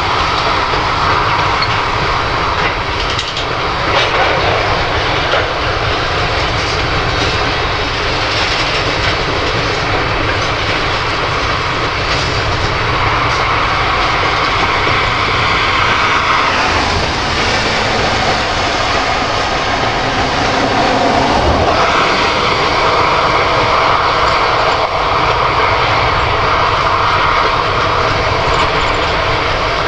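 Freight train's hopper and tank cars rolling slowly past: a loud, steady rumble of steel wheels on the rails, with a few clicks and knocks.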